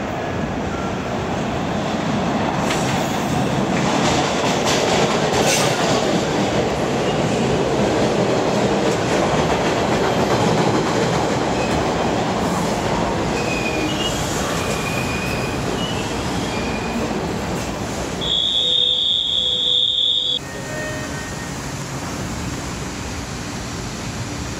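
MBTA Orange Line subway train pulling into the station: the rumble of steel wheels on rail grows louder as the cars roll past, with brief high wheel squeals as it slows. Near the end a steady high tone sounds for about two seconds as the train stands at the platform.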